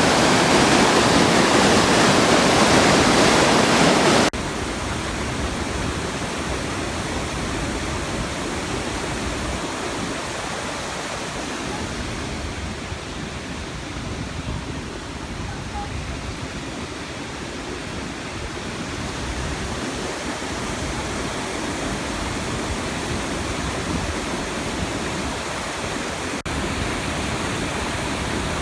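Rainbow Falls' waterfall making a steady rush of falling water, loud at first and dropping suddenly to a quieter rush about four seconds in.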